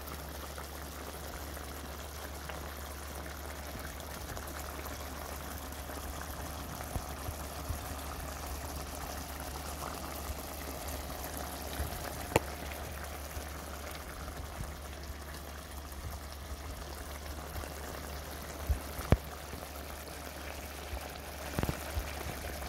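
Pot of curry chicken simmering, a steady bubbling hiss over a low hum, with a few sharp pops now and then, the loudest about 19 seconds in.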